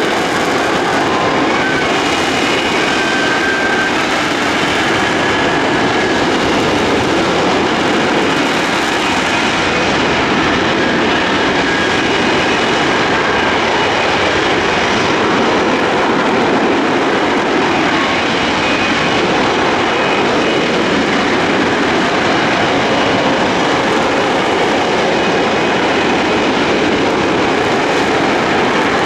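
RAF F-35B Lightning II's F135 jet engine running loudly and steadily, with a faint high whine over a broad rushing noise.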